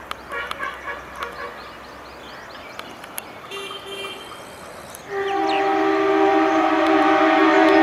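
A YDM4 meter-gauge diesel locomotive's horn sounds as the train approaches at speed: two short toots, then a loud, long, steady blast beginning about five seconds in.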